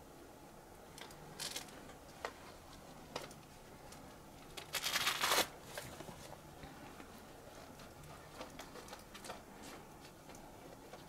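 Dry undergrowth rustling and crackling: a few scattered clicks, one louder rustle about five seconds in, then a run of small ticks and crackles.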